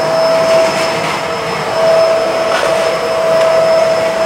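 Bissell MultiClean Allergen Lift-Off Pet upright vacuum running as it is pushed over a hard floor: a steady rush of suction with a constant whine.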